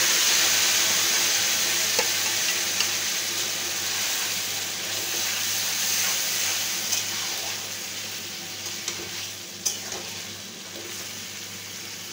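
Marinated mutton sizzling in hot oil in a kadai, just added and being stirred with a steel spatula; the sizzle is loudest at first and dies down over the seconds. A few sharp clinks of the spatula against the pan come through, around two, seven and ten seconds in.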